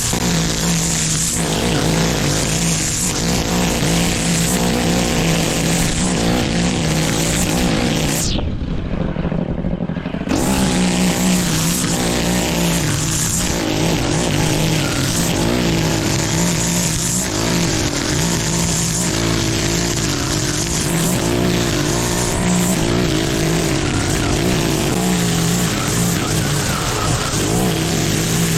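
Petrol lawn mower engine running steadily under load while cutting thick, wet grass, its pitch wavering as the load changes.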